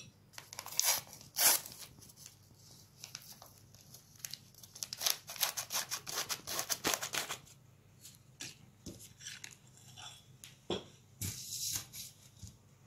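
Crinkling and rustling of a small packet as it is opened and emptied into a glass: a dense run of short crackles for several seconds, then a pause and a few more near the end.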